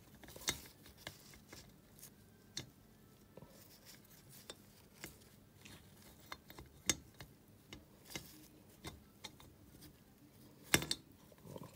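Scattered light metallic clicks and taps as a rocker arm is worked loose and drawn out of a single-cylinder ATV engine's aluminium cylinder head by hand. The strongest is a pair of sharper knocks about a second before the end.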